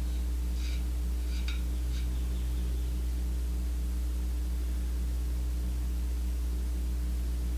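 A steady low hum, with a few faint light ticks in the first two seconds.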